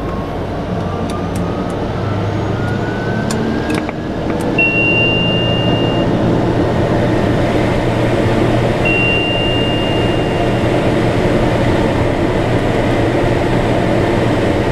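TBM 850's Pratt & Whitney PT6A turboprop running at idle just after start, heard in the cockpit: a steady drone and rush with a whine that rises in pitch over the first few seconds, then grows louder about four seconds in. A few clicks sound early on, and two short steady high tones come about five and ten seconds in.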